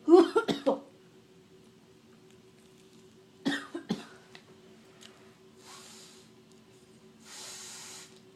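A person coughing in two fits, about four coughs at the start and three more around the middle, from throat irritation after inhaling crushed Smarties candy powder. Two breathy exhales follow near the end.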